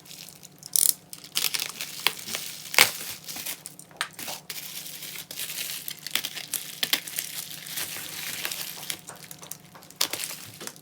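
Album packaging being handled and unwrapped: irregular crinkling and rustling with sharp crackles, the sharpest about three seconds in.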